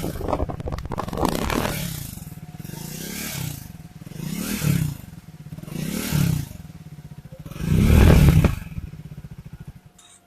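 Harley-Davidson X440's single-cylinder engine revved through its exhaust in a series of short throttle blips, each rising and falling, the last and loudest about eight seconds in. The sound cuts off suddenly near the end.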